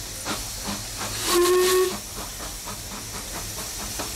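Narrow-gauge steam locomotive pulling away, its exhaust chuffing steadily at about four beats a second with a hiss of steam. About a second and a half in, the whistle gives one short blast, the loudest sound here.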